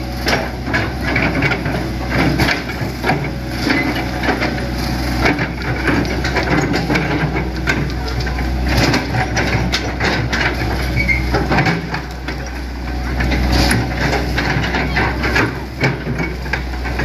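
Hitachi ZX100 excavator's diesel engine running steadily, with irregular knocks and crunches as the machine works.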